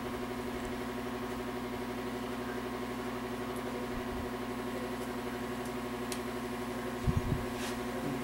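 Steady mechanical hum of a machine running in the workshop. A couple of low thumps come about seven seconds in.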